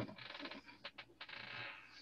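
Faint rustling noise with a few soft clicks about a second in.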